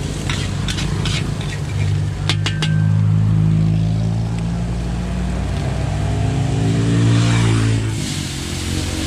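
A motor vehicle's engine running close by, a steady low hum whose pitch rises and falls midway. In the first few seconds a metal spatula clicks and scrapes against the steel wok.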